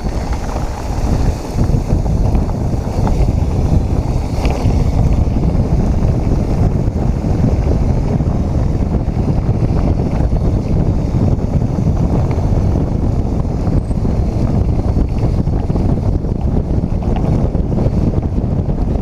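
Wind buffeting an action camera's microphone while a mountain bike rolls fast along a dirt trail, a steady low rumble mixed with tyre noise and small rattles. It builds over the first second and then holds.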